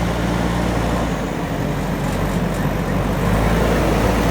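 JCB backhoe loader's diesel engine running steadily, getting slightly louder near the end.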